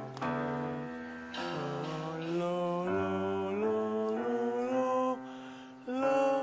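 A male voice singing held vowel notes over a Korg SP-170 digital piano's accompaniment in a vocal warm-up, the notes stepping upward in pitch. The sound dips briefly about five and a half seconds in, then a louder note comes in near the end.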